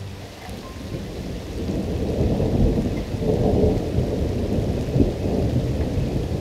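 Thunder rumbling over steady rain, swelling about a second in and then continuing as a deep, uneven rumble.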